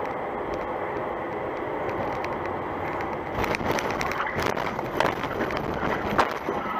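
Steady road and engine noise of a moving car as heard from inside it. From about three seconds in there are rattling knocks, with two sharper bangs near the end.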